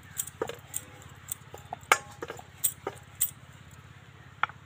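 Wooden rolling pin clattering and knocking on a wooden rolling board as dough is rolled out: about a dozen sharp clicks and knocks at uneven intervals, a few with a brief clinking ring. The loudest knock comes about two seconds in.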